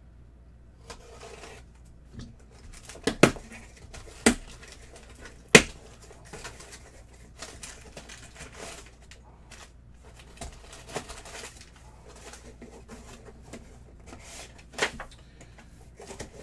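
A cardboard box being opened by hand. There are a few sharp snaps and knocks from the flaps, the loudest in the first six seconds, under steady crinkling of crumpled packing paper being pulled out.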